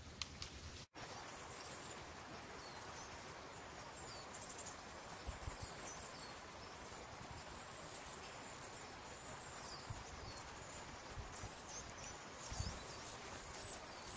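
Faint countryside ambience: small birds giving short high chirps on and off over a steady high insect-like hiss, with a few soft low thumps near the end.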